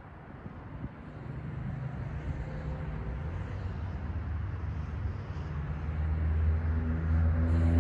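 Low rumble of an approaching diesel locomotive, its engine drone growing steadily louder as the train nears.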